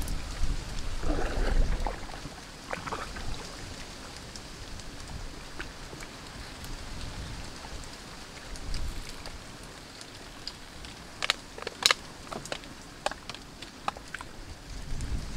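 A small wooden boat being paddled through flooded brush: water splashing and lapping, with low bumps at the start. A cluster of short, sharp knocks comes around eleven to thirteen seconds in.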